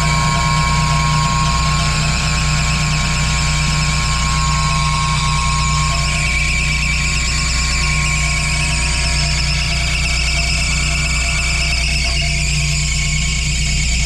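Three-phase 2.2 hp fan motor of a commercial fresh-air intake running, with a loud steady hum and a high whine over it. It sounds rough but is turning and not locked.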